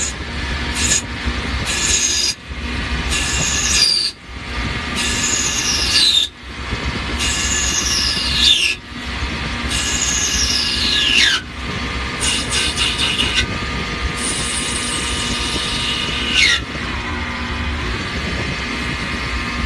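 CNC machining center cutting a brass worm shaft on its fourth axis. The cut gives a series of high squeals, about seven of them, each falling in pitch over a second or two, with a brief drop in level between them, over the steady machine hum. The squeals stop about three seconds before the end, leaving steady running.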